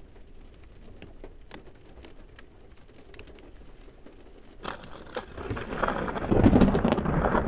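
Thunderstorm: scattered raindrop ticks over a quiet background, then, about four and a half seconds in, a thunder rumble builds and grows loud.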